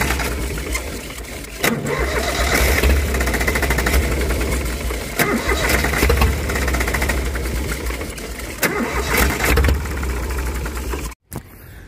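Small three-cylinder diesel engine of a compact excavator running with its cover off, unevenly, the sound dipping about a second and a half in and then picking up again. It runs rough and a bit weak, which the men put down to a fuel-supply fault at the injection pump. The sound cuts off abruptly near the end.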